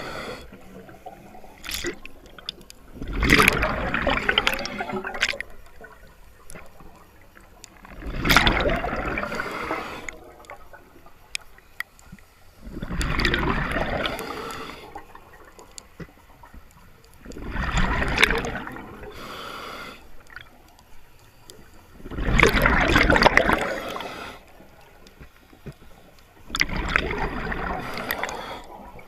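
A scuba diver's regulator underwater: a burst of exhaled bubbles gurgling past the camera about every five seconds, with quieter gaps between breaths.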